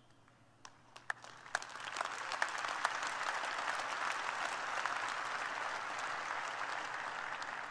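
Large audience applauding: a few scattered claps at first, swelling into steady applause by about two seconds in.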